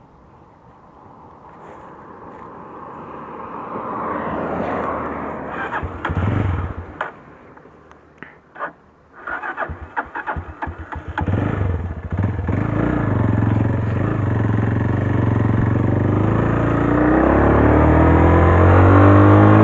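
Italika RT180 motorcycle engine getting under way. A noise builds over the first few seconds, and a stretch of irregular knocks and clatter follows in the middle. The engine then runs steadily and rises in pitch near the end as the bike accelerates.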